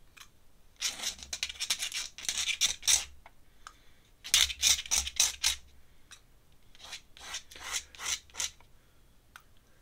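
Ink brush bristles rubbing and scratching across paper in quick strokes, in three bursts of a second or two each.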